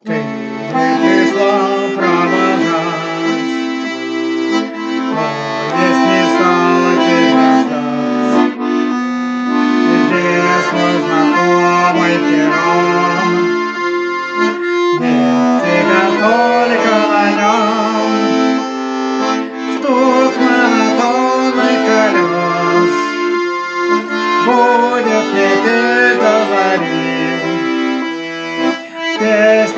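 Accordion playing a melody over held bass chords, continuous and loud.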